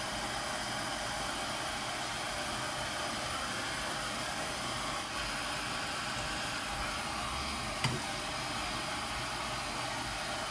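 Small butane hand torch burning with a steady hiss of the flame, heating a T-nut for oil bluing. One short knock about two-thirds of the way through.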